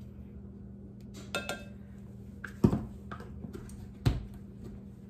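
A few light clicks, then two sharper knocks of a plastic measuring spoon and plastic tub being handled and set down on a kitchen counter. The loudest knock comes about two and a half seconds in and another about a second and a half later, over a steady low hum.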